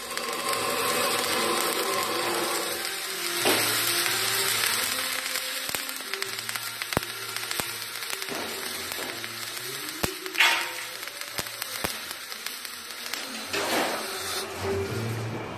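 Gasless flux-core MIG welding on a steel bar: the welding arc runs with a steady noisy hiss, broken by a few sharp clicks.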